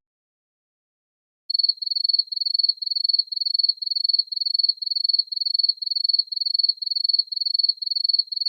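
Crickets chirping, from a stock sound-effect clip: a steady train of high-pitched trilled chirps, about two and a half a second, starting about a second and a half in.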